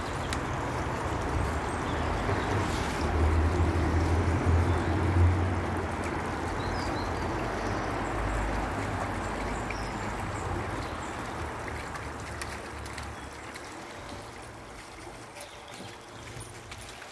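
Shallow woodland stream running, a steady rush of water that grows louder a few seconds in and fades near the end, over a low rumble on the microphone.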